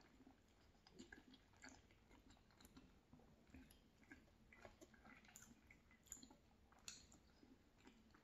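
Faint close-miked chewing of a soft mouthful of cheeseburger, with small irregular wet mouth clicks scattered through.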